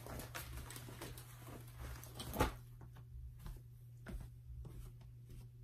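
Rustling and soft knocks of a vegan leather moto jacket being handled, with one louder thump about two and a half seconds in, then a few scattered light taps.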